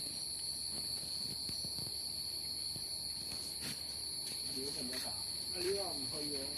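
Crickets chirring in a steady, unbroken high-pitched drone, with faint voices talking in the background about five seconds in.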